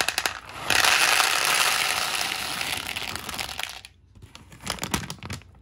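Dried chickpeas pouring out of a plastic bag into a plastic bowl. A few clicks as the first peas drop, then a dense rattling rush for about three seconds that thins out and stops. A few scattered clicks follow near the end.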